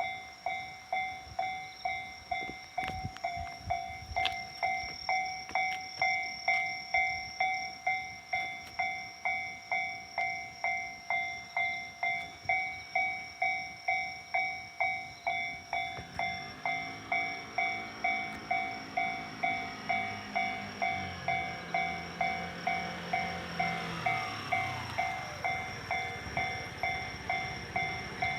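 Japanese railway level-crossing warning bell ringing steadily at about two strokes a second. From about halfway through, an electric train runs through the crossing, its motor whine stepping down in pitch as it slows for the station.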